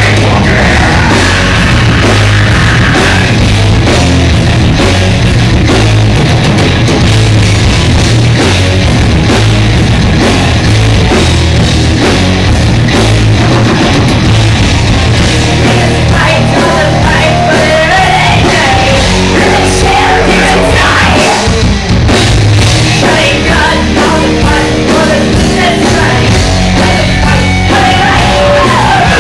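A rock band playing live and loud through a concert sound system, with drums and amplified guitars, heard through a phone's microphone close to full level.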